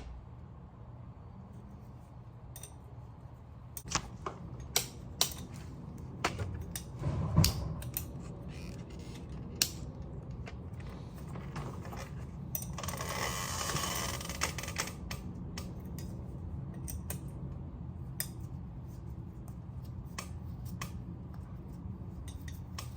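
Scattered light metallic clinks and taps from tools and brake parts being handled, with a soft hiss lasting about two seconds near the middle, over a low steady hum.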